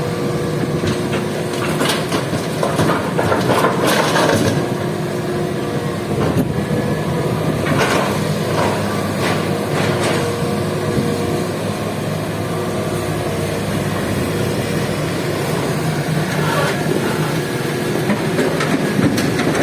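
Heavy diesel machinery running steadily while an excavator loads rock into a dump truck, with scattered knocks and rattles from the bucket and the rock, the busiest stretch about two to four seconds in and more around eight and ten seconds.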